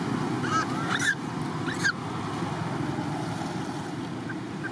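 Macaque squeaks: three short high calls in the first two seconds, each rising and then falling in pitch. Under them runs a steady low background rumble.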